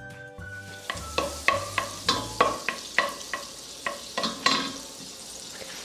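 Melting margarine sizzling in a stainless steel pot while a plastic spoon stirs it, knocking and scraping against the pot about three times a second. The knocks die away near the end.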